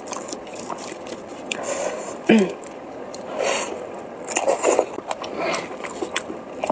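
Mouth sounds of someone eating: wet chewing with small crackles and clicks, and a brief hummed 'mm' about two seconds in.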